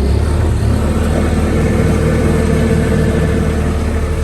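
Bobcat S550 skid steer's diesel engine running steadily just after start-up, heard from the open cab, with a steady low drone and a higher tone joining about a second and a half in.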